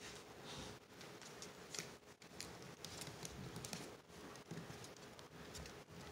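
Puppies scuffling on a tile floor: faint, irregular clicks and patter of small claws and paws on the tiles.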